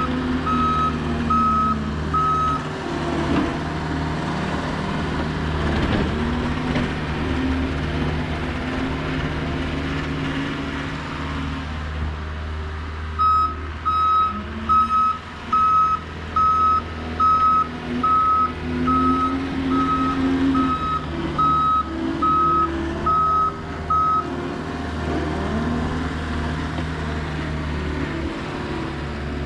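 John Deere 325G compact track loader working: its diesel engine runs steadily, rising and falling in pitch, while its reversing alarm beeps about once every three-quarters of a second. The alarm beeps briefly at the start, then again for about eleven seconds from around the middle as the loader backs up.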